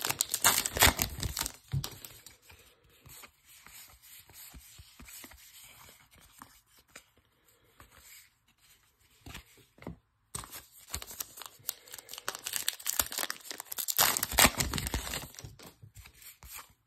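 Baseball trading cards being handled and slid against one another, then, from about ten seconds in, a card pack's wrapper crinkled and torn open, loudest about fourteen seconds in.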